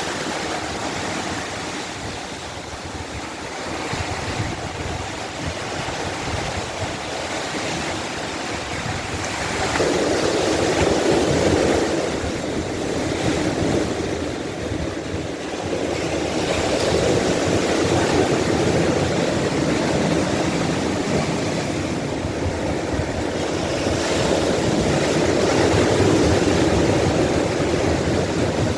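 Ocean surf washing onto a beach: a steady rush of breaking waves that swells louder three times as bigger waves come in.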